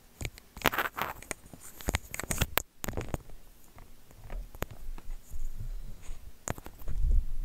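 A plastic comb being drawn through long hair close to the microphone: irregular scratchy strokes and sharp clicks, with some low bumps near the end.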